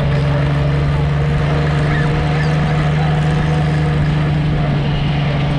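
Old tractor's engine running at a steady speed as it drives along a road, heard from on board: a constant low drone with a road-and-wind rush.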